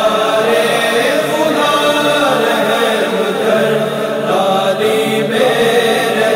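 A male voice singing a hamd, a devotional song in praise of God, in a slow chant-like style over a steady humming vocal backing.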